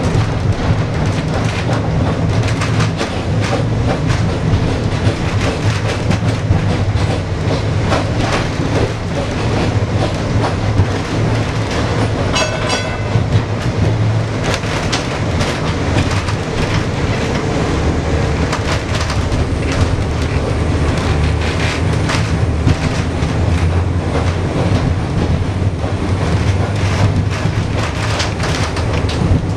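Heritage tram No. 29 running along its track, heard on board: a steady low hum from its running gear with the wheels clicking and rattling over the rails.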